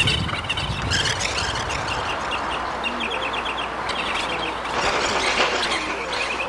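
Birds chirping in quick runs of short, high notes.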